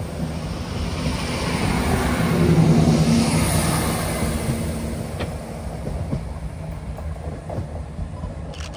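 Chiltern Railways Class 168 diesel multiple units running along the platform. Their engines grow loudest about two to three seconds in, then fade away as the train moves off.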